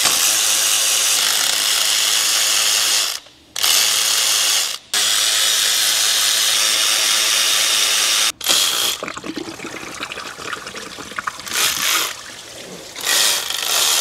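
A power tool runs in three long spells as it spins bolts out of the engine's water pump. Then it is quieter, with antifreeze pouring and splashing out as the pump comes loose, and a few knocks.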